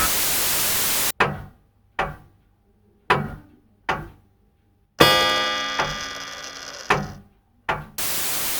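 Clock-like ticking: sharp, hollow strokes about once a second, with one louder, ringing chime-like strike about halfway through that dies away slowly. A burst of radio static cuts off just before the ticking starts and comes back near the end.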